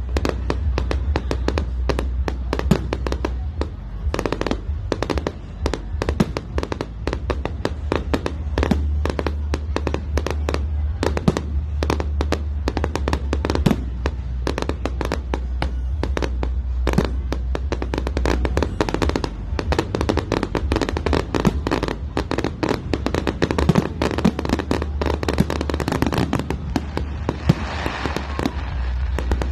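Fireworks display: a dense, continuous run of bangs and crackling bursts, with music and its steady bass playing underneath.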